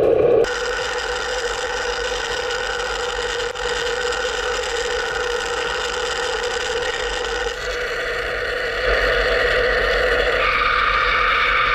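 ONA AV35 wire EDM running as it burns through titanium 3D-printed brake levers on their build plate: a steady machine hum made of several held tones, whose pitch mix shifts abruptly a few times.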